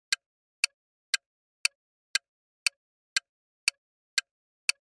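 Ticking countdown-timer sound effect: short, sharp ticks at a steady two per second, with silence between them, counting down the thinking time.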